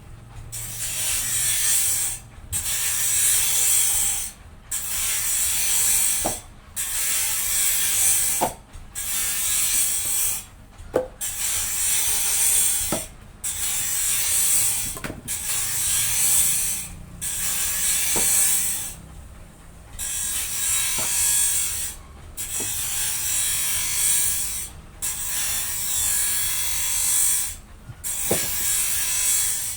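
Rhythmic scraping strokes, a hiss lasting about one and a half to two seconds each, repeated roughly every two seconds, with a light click between strokes.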